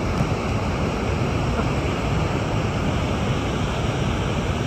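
Waterfall pouring into its plunge pool: a steady, even rush of falling water.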